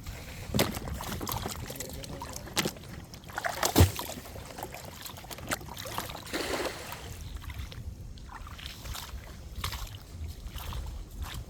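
Water sloshing and splashing around a small boat, with a few scattered knocks and a brief swish about two-thirds of the way in.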